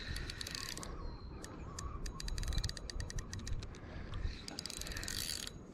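Spinning reel being cranked, giving rapid runs of clicks, as a hooked trout is reeled in. A low steady rumble lies underneath.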